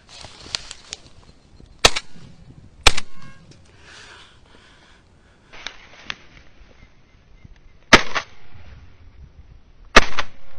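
Shotgun firing at flying ducks: four loud shots, the first two about a second apart and the last two about two seconds apart, with two fainter cracks in the first second.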